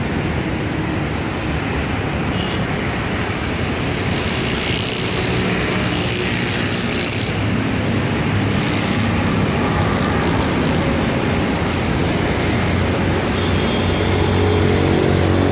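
City street traffic noise: a steady wash of passing vehicles and engines, with a low engine hum that comes up stronger in the second half.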